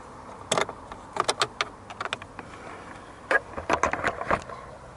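Short sharp clicks and light knocks of hard plastic dashboard trim and a metal screwdriver, coming in irregular clusters, with a denser run in the second half as the glovebox panel is worked back into place.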